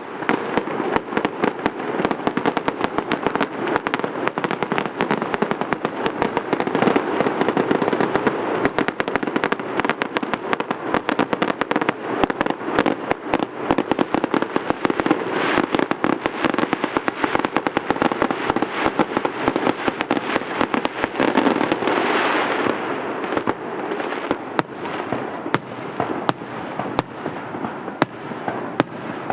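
Fireworks display in a dense barrage: a continuous mass of bursts and rapid crackling pops, easing a little about two-thirds of the way through while the crackling goes on.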